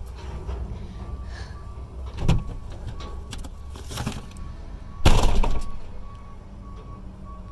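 Two loud bangs, a shorter one about two seconds in and a heavier one about five seconds in, over a steady engine rumble and a reversing alarm beeping about twice a second.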